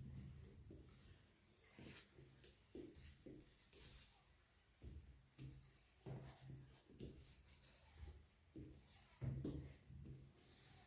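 Faint, irregular rubbing and scraping, with scattered light knocks and swishes.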